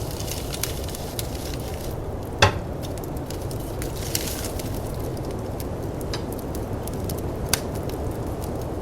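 Wood fire crackling with scattered sharp pops, the loudest about two and a half seconds in, over the steady low rumble of snowstorm wind.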